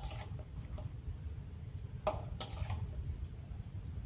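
A spatula stirring marinated chicken pieces in a bowl: a few soft wet scrapes and knocks against the bowl, most of them about two seconds in.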